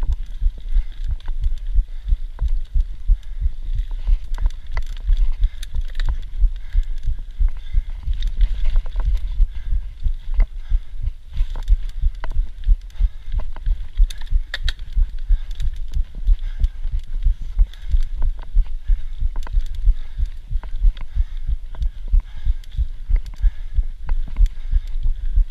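Mountain bike ridden over a rough dirt trail, heard through a body-mounted camera: a constant low rumble with irregular thumps as the bike jolts over the ground, with frequent sharp clicks and rattles from the bike.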